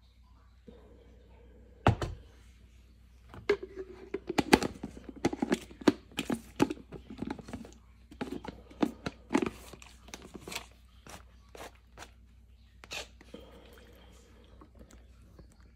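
Cut celery stalks being pushed and packed by hand into a plastic Nutribullet blender cup. The stalks crunch against each other and knock against the plastic, and the cup knocks on the cutting board, in a string of irregular sharp knocks that are busiest between about two and eleven seconds in.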